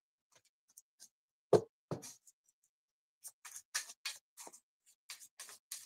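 A deck of tarot cards being shuffled by hand: two duller knocks about a second and a half and two seconds in, then a run of quick, light card flicks through the second half.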